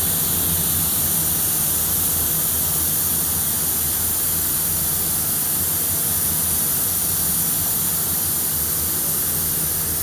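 Shot-blast booth running: a steady hiss over a low hum. This is the abrasive blast-cleaning stage that strips scale from the steel parts before painting.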